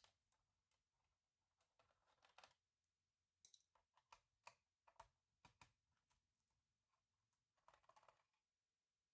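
Faint clicks, taps and short scraping rattles of hands working on a laptop and its small plastic and metal parts: about a dozen separate sharp clicks, with two brief clusters of rapid ticking about two seconds in and near the end.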